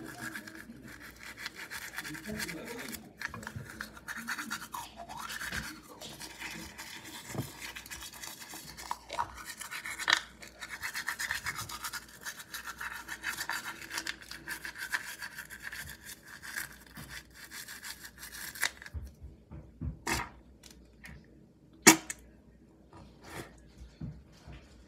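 Manual toothbrush scrubbing teeth up close, a fast continuous scratchy brushing with foamy mouth sounds. It stops about 19 seconds in, and a few sharp clicks follow, one loud one about 22 seconds in.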